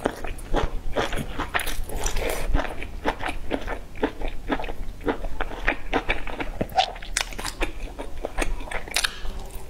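Close-up eating: biting into and chewing a soft flatbread wrap stuffed with cabbage, enoki mushrooms and sausage, a steady run of irregular, crisp, wet crunches and smacks.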